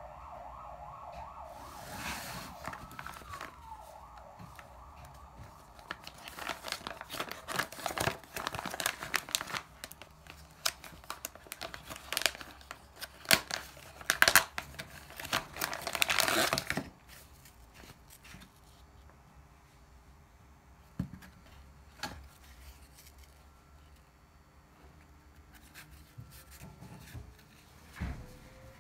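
A clear plastic bag crinkling and tearing as it is pulled open by hand. The rustling starts about two seconds in and builds to its loudest stretch of tearing near the middle. After that only a few soft clicks and taps from handling are left.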